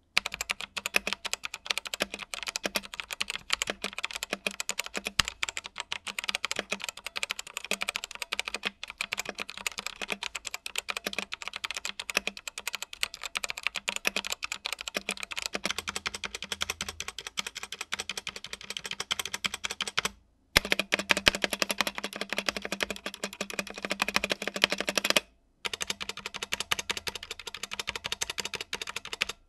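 Typing on a Digital Alliance Meca Air S mechanical keyboard fitted with Otemu brown switches: rapid, continuous key clacking. Twice it breaks off for a moment of silence, about twenty and twenty-five seconds in.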